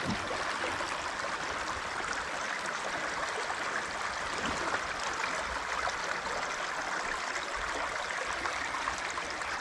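A small creek running, a steady, even rush of flowing water.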